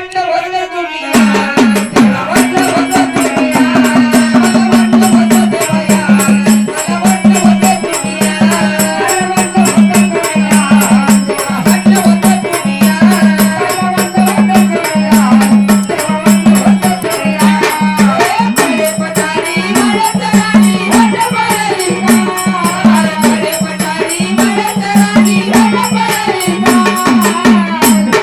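Marathi folk-style song music without words: a fast, even rattling percussion rhythm over a low drum note that pulses about twice a second, with a wandering melody line above.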